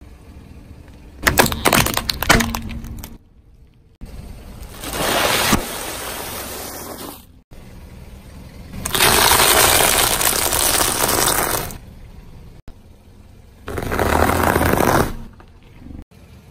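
A car tyre rolling over small brittle objects and crushing them: a quick run of sharp plastic cracks, then several longer crunching bursts a few seconds apart as crunchy snack pieces break up under the wheel.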